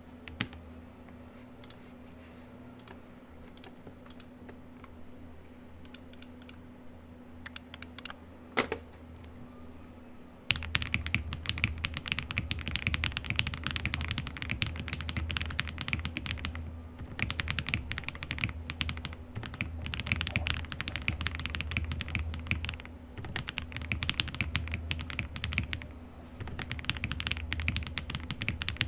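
Typing on a custom Zoom65 V3 mechanical keyboard with lubed KTT Kang White switches and PBT keycaps. At first there are only a few scattered keypresses over a steady low hum. About ten seconds in, fast continuous typing starts and runs on with a couple of short pauses.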